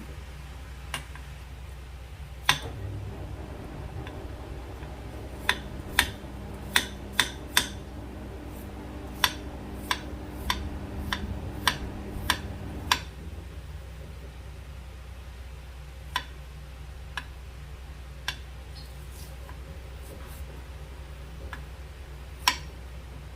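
Kitchen knife knocking on a cutting board while cutting water chestnuts: sharp, irregular knocks, closely bunched in the middle and sparser toward the end, over a steady low hum.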